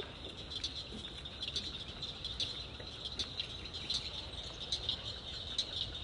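Steady high-pitched insect chorus, with short chirps scattered through it.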